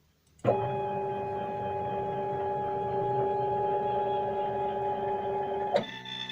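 Stepper motors of a homemade CNC machine driving an axis, a steady whine of several tones that starts suddenly about half a second in. Near the end it switches to a quieter whine with different tones as the move changes.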